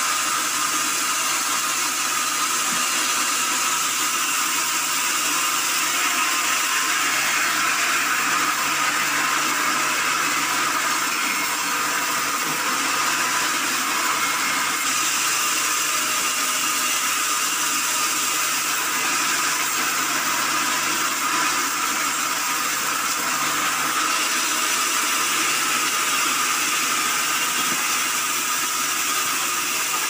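Vertical band saw running steadily while wood slabs are fed through it and ripped into boards: a continuous machine noise, most of it high-pitched.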